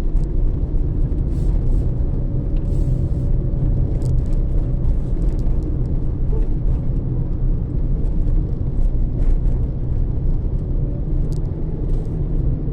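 Steady low engine and road rumble inside the cabin of a 2017 Toyota Etios being driven, with a faint thin steady whine through the middle.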